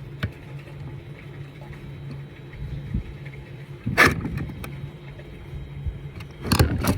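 Plastic vacuum-cleaner parts being handled and set down: a click, a loud clatter about four seconds in and another near the end, over a steady low hum.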